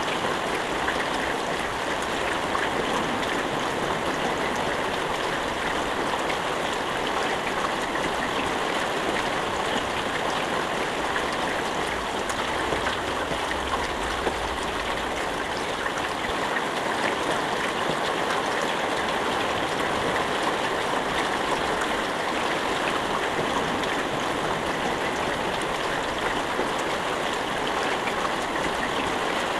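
Steady rain falling, an even dense hiss with a fine patter of drops and no thunder.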